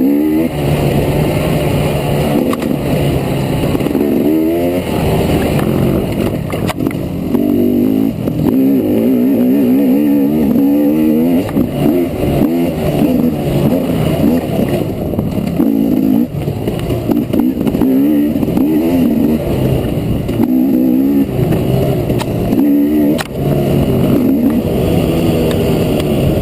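Trail bike engine being ridden hard, its pitch rising and falling over and over as the throttle opens and closes and the rider works through the gears.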